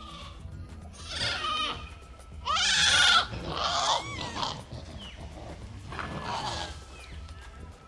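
Japanese macaques calling: four high-pitched, wavering screeching calls, the loudest about two and a half seconds in and one rising in pitch about four seconds in.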